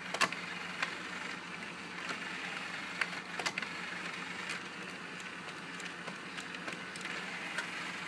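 Carousel CD changer mechanism of an RCA RS2664 compact stereo cycling through its disc trays to find a disc. A small motor whirs steadily over a low hum, with short plastic clicks scattered throughout as the trays shift.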